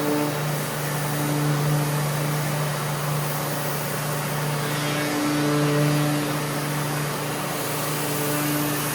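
Surfprep electric sander running on a cabinet door, with a Festool dust extraction vacuum drawing through the hose: a steady hum under a hiss, dipping briefly about five seconds in.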